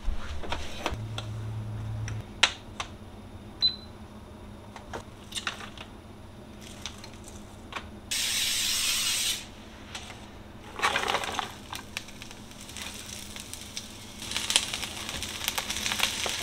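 Kitchen food-prep handling: plastic containers and utensils set down and moved on a countertop, with scattered clicks and knocks. A steady hiss lasts about a second and a half just past the middle, and there is crackly rustling of chopped vegetables later on.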